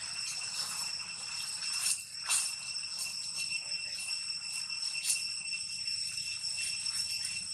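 Steady, high-pitched drone of insects, a cricket or cicada chorus, with a few brief rustles in dry leaf litter.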